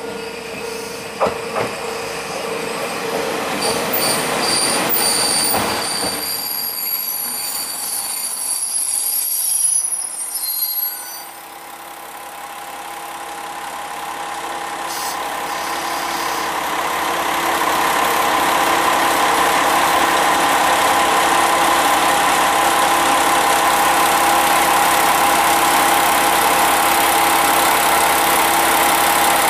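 KiHa 40 diesel railcar rolling in over the rails with a few wheel clicks, its wheels and brakes squealing high as it slows, falling off suddenly as it stops about ten seconds in. Its diesel engine then idles, growing louder over several seconds and then running steadily.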